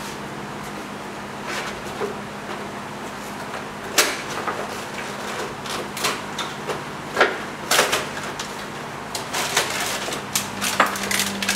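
Scattered light knocks and clatter of items being handled on a kitchen counter, a few at first and more frequent near the end, over a steady low hum.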